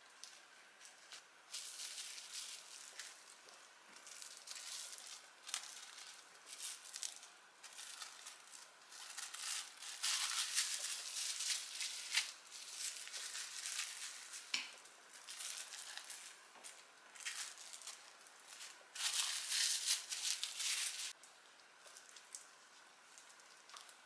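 Plastic cling film crinkling and rustling in irregular bursts as hands wrap rice balls in it, loudest about ten seconds in and again a few seconds before the end.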